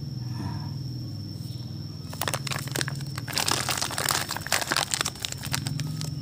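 Crinkling of a foil-lined paper Gandasil D fertilizer sachet being folded and crumpled shut by hand. It starts about two seconds in and is densest in the middle, then stops.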